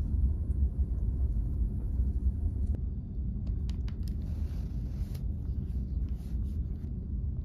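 Steady low rumble of a large ferry underway, its engines and hull vibration heard inside a passenger cabin. A few faint clicks come a little past halfway.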